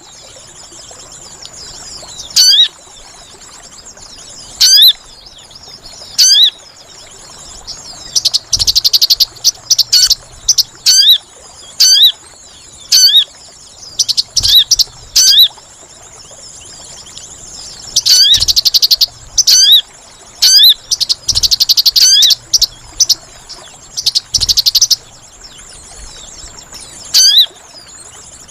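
Sogon bird-lure calls: sharp, steeply falling whistled notes repeated every second or two, broken by clusters of rapid, high trills, over a steady high insect drone.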